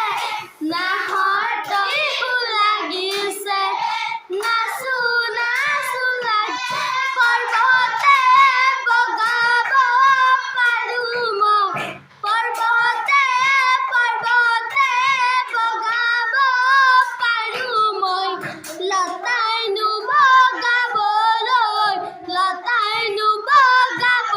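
Children singing an Assamese Bihu song, a high melody with wavering ornaments that breaks off briefly about halfway through.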